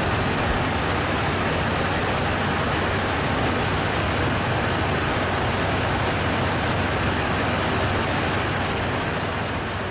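Steady roar of jet airliner cabin noise, engine and airflow, with a low hum underneath, easing slightly near the end.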